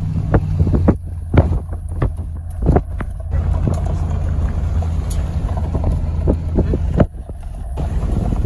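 A motor vehicle driving, with a loud steady low engine and road sound, wind buffeting the microphone, and scattered knocks and rattles.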